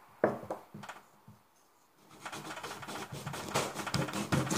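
Kitchen knife cutting a whole pomegranate over a wooden chopping board. There are a few sharp clicks in the first second, then, after a short pause, a dense crackling scrape from about two seconds in as the blade works through the tough rind.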